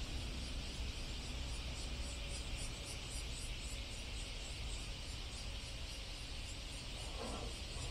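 Insects chirping in rhythmic high-pitched pulses over a steady low rumble, with a rougher noise starting near the end.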